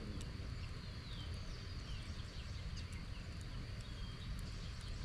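Wood fire crackling in a steel fire pit, with scattered sharp pops, over a steady high insect drone and short falling bird calls.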